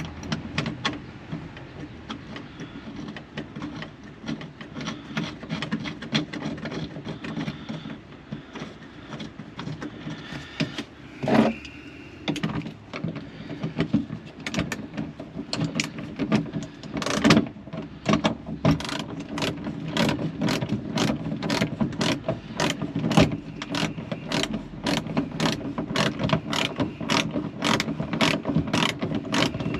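Hand ratchet clicking as it turns a seat-belt anchor bolt down against a spacer; scattered at first, then regular clicks about three a second through the second half.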